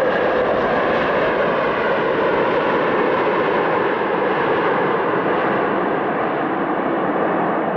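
Airliner jet engines running, a loud, steady roar with no change in pitch.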